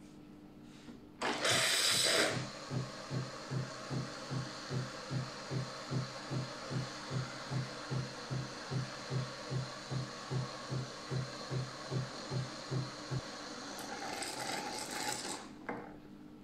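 Nivona NICR550/560 bean-to-cup coffee machine rinsing its cappuccinatore (milk frother). A short burst of hissing about a second in, then the pump pulsing about two and a half times a second as hot water flushes through the frother into a mug. A second stretch of hissing near the end.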